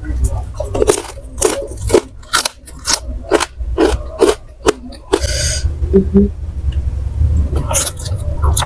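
Close-up crunching of kerupuk crackers being chewed, a crisp crunch about twice a second, stopping about five seconds in; a brief hiss follows.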